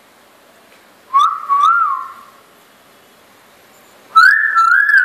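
Common hill myna giving two loud, clear whistles, one about a second in and another near the end, each rising and then bending up and down in pitch; the second is higher and louder.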